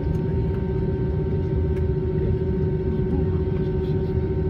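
Steady cabin noise inside an Airbus A320 as it moves back from the gate: a low rumble with a steady mid-pitched drone over it, as from the aircraft's air-conditioning, APU or engines.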